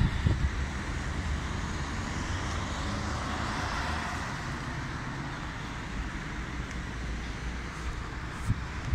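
Road traffic on a city street: a steady hum of passing cars' tyres and engines that swells about three to four seconds in as a car goes by, with a single short knock near the end.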